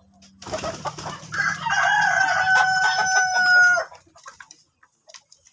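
A rooster crowing once: a rough opening, then a long call held on one pitch that cuts off sharply about four seconds in.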